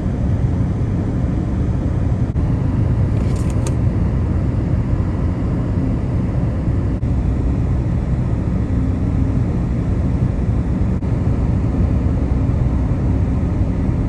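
Steady low road rumble of a car driving at speed, heard from inside the cabin: tyre and engine noise with wind.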